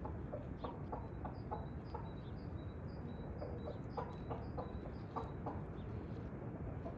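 Chickens clucking in short runs of calls, with a bird's quick, high chirps repeating over a steady low outdoor background.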